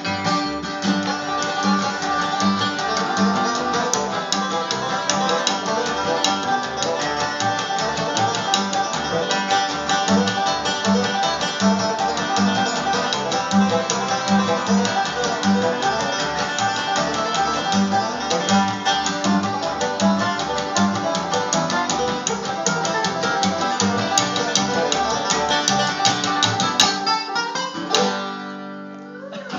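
Bluegrass picking on acoustic guitar and banjo over a steady bass pulse of about two notes a second. Near the end the playing breaks off and a last chord rings out.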